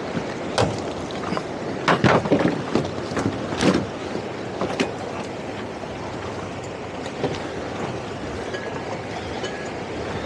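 Center-console towboat underway in choppy water: a steady rush of wind and water, with a cluster of sharp knocks and thuds between about half a second and five seconds in.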